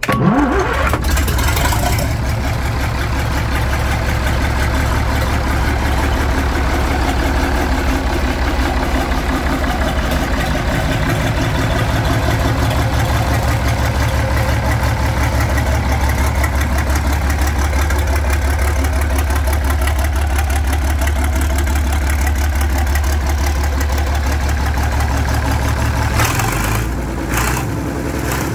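Lister HRW6 six-cylinder water-cooled marine diesel engine cranked on its electric starter, catching almost at once and quickly speeding up, then running steadily. About 26 seconds in its running note changes and drops a little in level.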